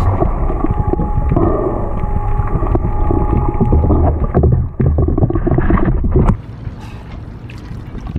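Muffled underwater noise picked up by a camera held in the water beside a boat's hull and bow thruster: a dense low rumble of moving water. It drops sharply in level about six seconds in.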